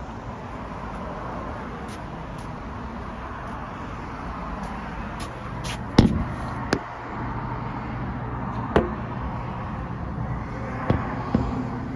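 Steady outdoor rumble with a low hum, broken by several sharp knocks, the loudest about six seconds in and more near the end.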